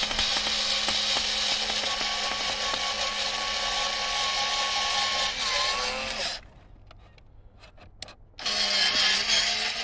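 Small cordless electric mini screwdriver motor running steadily as it drills into hardwood. Its whine sags slightly just before it stops about six seconds in. After a pause with a few light clicks it starts again near the end.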